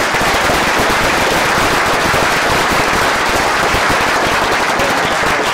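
Audience applauding: a loud, steady, dense crackle of many hands clapping.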